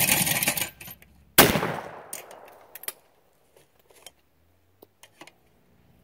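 A brief noisy burst as the clay is released, then a single loud 12-gauge shotgun shot about a second and a half in, with a decaying echo. Scattered clicks and clatter of the break action follow.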